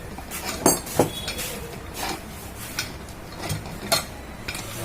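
Several sharp, separate metal clinks and knocks of tools and ceiling fan parts being handled as the fan is taken apart.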